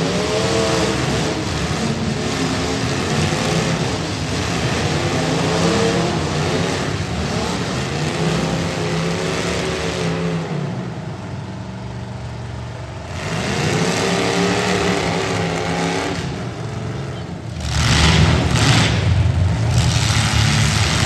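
Demolition derby cars' engines revving hard, the pitch swelling and falling again and again, with a louder, rougher stretch near the end.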